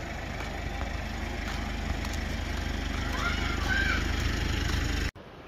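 A small engine running steadily under outdoor background noise, with a few brief high-pitched calls about three seconds in. The sound cuts off abruptly near the end to a much quieter background.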